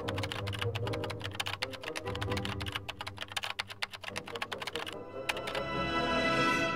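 Fast computer-keyboard typing over background music. The typing stops about five seconds in, after a few last keystrokes, and the music swells.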